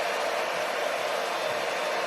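Hair dryer blowing steadily, an even rushing noise that does not change.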